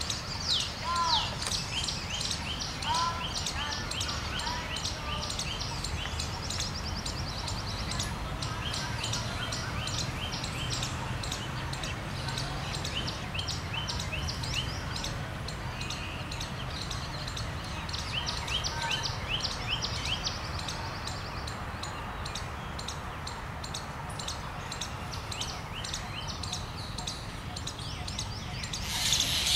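Birds chirping and calling in the trees, a dense run of quick, high chirps with a few lower arched calls near the start, over a steady low background rumble. A louder rush of noise starts right at the end.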